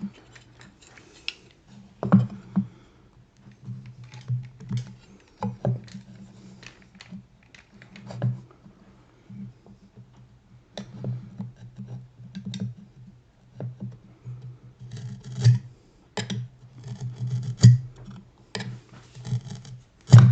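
Hand tools being handled on wood at a workbench: scattered light taps, clicks and scratches, irregular and with no steady rhythm.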